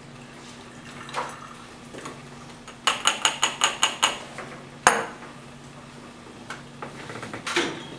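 Glass laboratory flask clinking as it is handled at the neck: a quick run of about eight small clinks a few seconds in, then one sharp knock a second later.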